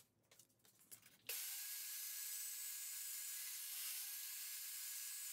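Portable bandsaw running: a faint, steady hiss that starts abruptly about a second in, after a few light clicks.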